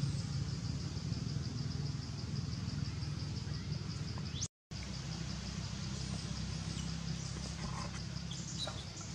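Outdoor ambience: an insect chirping in a rapid, even, high-pitched pulse several times a second over a steady low hum. The sound cuts out completely for a moment about halfway through.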